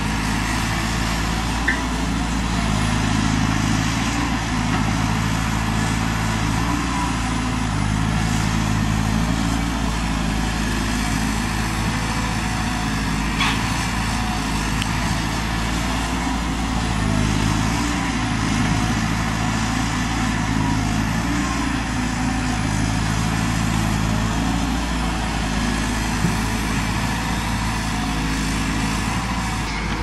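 Caterpillar 320D hydraulic excavator's diesel engine running under working load, its note rising and falling every few seconds as the boom and bucket dig and swing. A couple of short knocks stand out.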